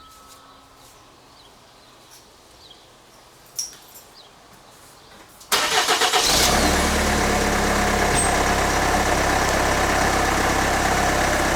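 2014 Hyundai Santa Fe's engine being started: after a single click, about halfway through the engine cranks briefly, catches and settles into a steady idle.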